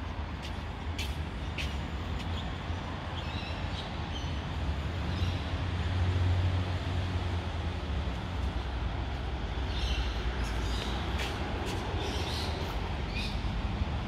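Steady low rumble of a vehicle engine idling, with a few short high chirps a few seconds in and again near the end.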